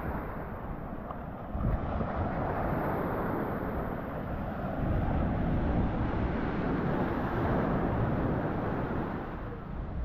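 Surf washing up a sandy beach, mixed with wind buffeting the microphone. The wash swells about two seconds in and again through the middle, then eases near the end.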